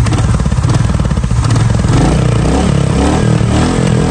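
Royal Enfield Classic 350's single-cylinder engine revved from idle on the throttle. Its exhaust beat quickens over the first two seconds, then it holds at higher revs with a wavering pitch.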